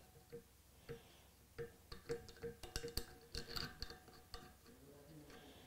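Faint, irregular metallic clicks and ticks of a connecting rod assembly being handled as a star-type rod bolt is threaded in by hand, the steel rod and cap shifting lightly on the crankshaft journal.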